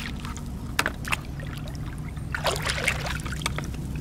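Shallow water splashing and trickling as hands and rubber boots move through it while razor clams are scooped up, in short bursts about a second in and again between two and three seconds, over a steady low rumble.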